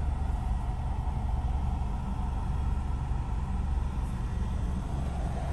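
Steady low rumble of a car heard from inside its cabin while driving.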